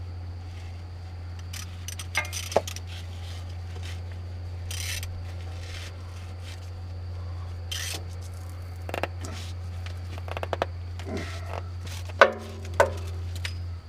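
Scattered metallic clicks, clinks and scrapes from hands and tools working at the spin-on oil filters of a Caterpillar diesel engine, over a steady low hum. The sharpest clicks come about two seconds in and again near the end.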